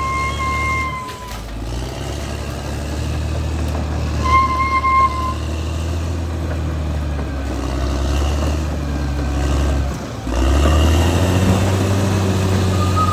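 Caterpillar D6R XL bulldozer's diesel engine running under load, with its reversing alarm sounding in long single-pitch beeps at the start, about four seconds in and again near the end. About ten seconds in the engine dips briefly, then comes back louder.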